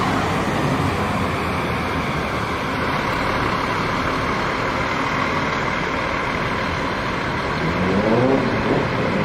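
Steady road traffic noise. Near the end a bus engine revs up, rising in pitch.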